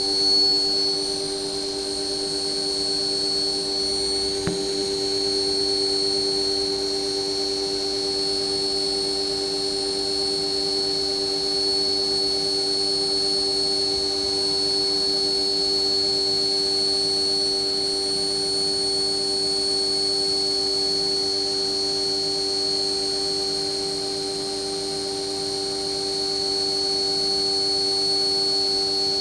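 CNC mill's spindle and end mill cutting the outside profile of an aluminum coaster: a steady machining whine with a constant high tone and a few lower hums, running evenly throughout.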